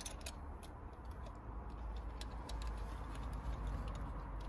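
Scattered light clicks and ticks, irregular and a few a second, from the diesel injector pipe and its union nuts being handled and offered into place, over a low steady rumble.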